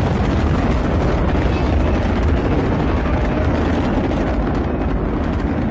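Space Shuttle launch heard from the ground: the rocket exhaust of the solid rocket boosters and main engines gives a steady, deep rumble with a ragged crackle in it as the vehicle climbs.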